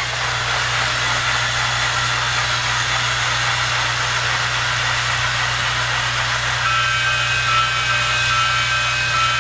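Battery-powered Thomas TrackMaster toy train motors whirring steadily as the engines run along the plastic track, with a higher-pitched whine of gearing joining in about two-thirds of the way through.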